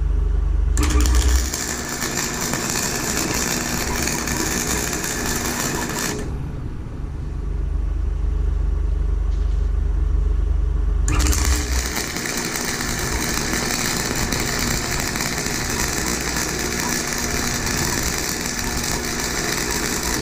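Chicago Electric flux-core wire-feed welder arc crackling as beads are run on steel. There are two runs: one of about five seconds starting near the start, and a longer one of about nine seconds starting just past halfway. A low steady hum fills the pause between them.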